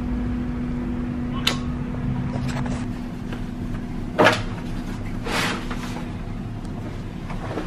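Clothes being packed into a hard-shell suitcase: a few clicks, a sharp knock about four seconds in, and fabric rustling about a second later, over a steady low hum in the room.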